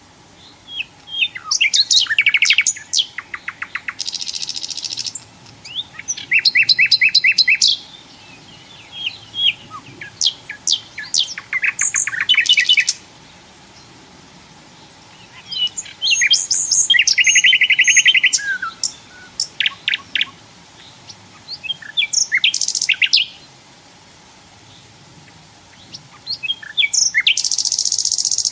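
Nightingale singing: separate phrases of rapid repeated notes, fast trills and high whistles, each a second or few long, with short pauses between them.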